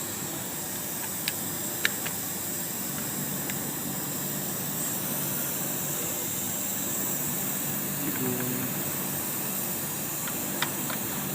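Steady hiss of background machine noise, with a few faint light clicks from hands working on the sewing machine, near the start and again near the end.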